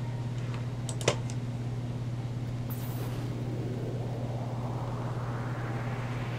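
Steady low hum with faint room hiss, and a single sharp click about a second in.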